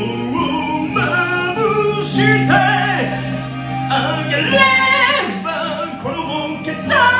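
A man singing a lively J-pop song into a handheld microphone over a karaoke backing track.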